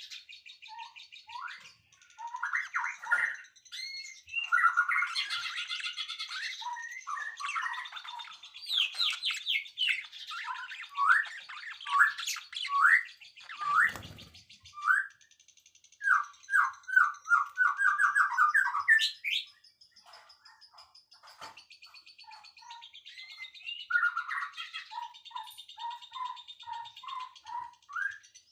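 Several birds singing and chirping together: runs of short, rising whistled notes, quickening to about four a second after the middle, over a steady high trilling that thins out for a few seconds past the halfway point.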